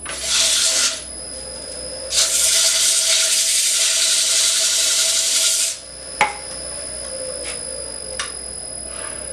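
Wood lathe running with a steady hum while the spinning wood is worked with a loud rasping, scraping contact, once briefly and then for about three and a half seconds. A single sharp knock about six seconds in.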